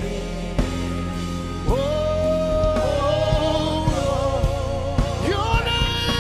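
Live gospel worship music: a singer holding long, wavering notes over a band with drum kit and a steady low bass.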